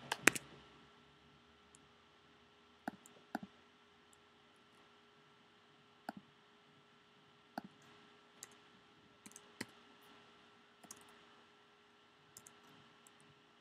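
Scattered clicks of computer keyboard keys and a mouse, single or in pairs every second or two, the loudest pair right at the start, over a faint steady electrical hum.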